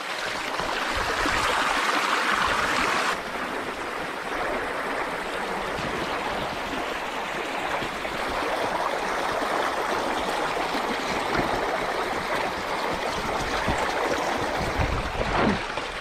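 River water flowing steadily over stones, with water gurgling into a 10-litre water can held in the current to fill it. A brighter rushing sound cuts off abruptly about three seconds in.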